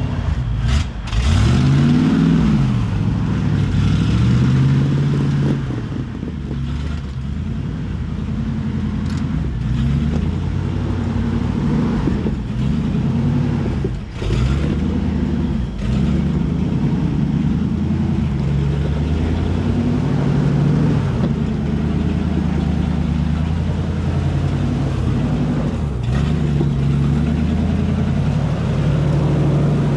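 Caged Jeep Wrangler TJ's engine revving up and down in repeated swells, every second or two, as it crawls up a steep rock ledge climb.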